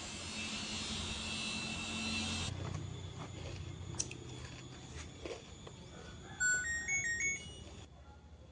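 LG inverter washing machine's control panel beeping out its short electronic tune, a quick run of stepped beeps lasting about a second and a half, after a low hum and a few light clicks.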